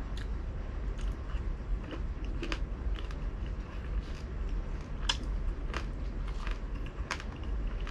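Close-miked chewing and biting of crispy fried pork belly, with irregular crunching crackles. The sharpest crunches come about five, six and seven seconds in.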